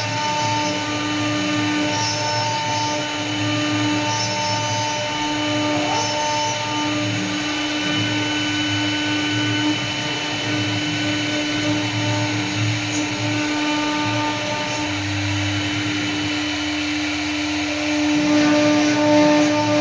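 CNC wood router carving: a steady spindle whine over a shifting, grainy noise from the bit cutting the wood. It gets a little louder near the end.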